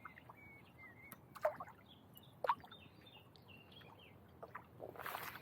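Water dripping and trickling off kayak paddles, with a few small knocks and splashes, and a louder paddle splash near the end.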